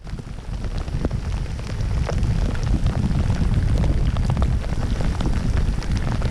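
Rain from a passing squall, many drops ticking over a strong low rumble that builds over the first two seconds or so, then holds steady.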